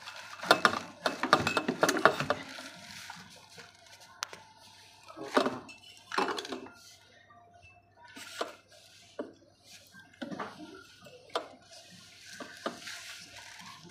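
Clicks and knocks of high chair parts being handled and fitted: white leg tubes pushed into the sockets of a red plastic frame. A quick run of clicks in the first two seconds, then scattered single knocks.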